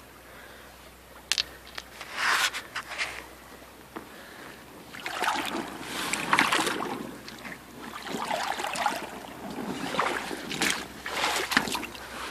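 Boots wading through a shallow, gravelly creek: irregular splashing and sloshing of water with the steps, coming in several uneven bursts.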